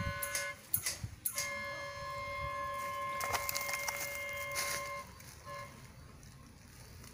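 Train horn sounding a steady multi-note chord: a short blast, then a long one of about three and a half seconds, and a brief toot about five and a half seconds in.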